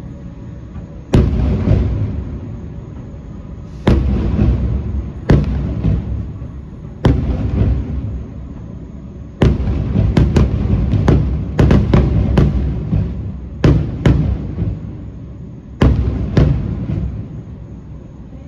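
Aerial display fireworks bursting: a string of sharp booms, each trailing off in a rolling rumble. The booms come a few seconds apart at first and crowd together in the middle.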